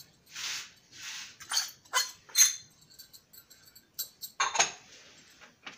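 Plastic packet crinkling and rustling as icing sugar is shaken out of it over a steel bowl, with a string of short sharp crackles and light clinks.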